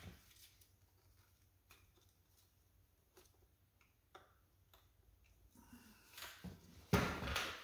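Sparse faint metal clicks as the NP263 transfer case oil pump is worked loose and slid out along the rear output shaft, then a louder handling noise near the end as the pump comes free.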